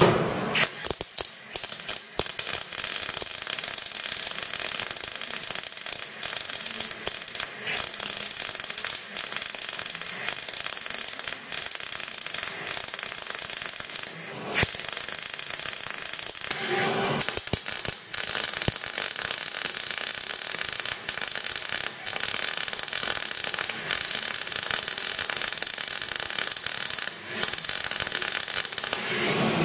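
MIG welder arc plug-welding (puddle-welding) a steel car bulkhead panel: a steady crackling sizzle, with a few short breaks between welds.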